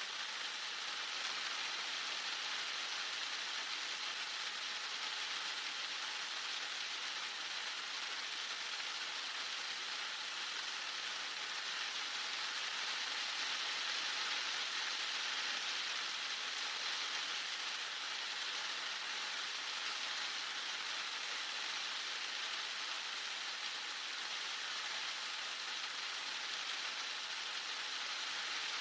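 Heavy rain falling steadily, a dense even hiss with no breaks or separate drops standing out.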